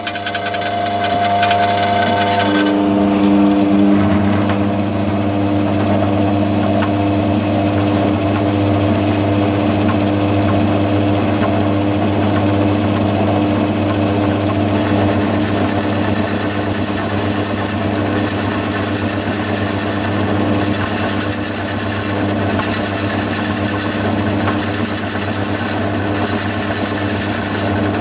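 Myford ML7 lathe running an end mill in an ER40 collet chuck, its motor and spindle humming steadily after settling to speed in the first few seconds. From about halfway a high-pitched cutting hiss comes and goes every second or two as the end mill mills the brass workpiece.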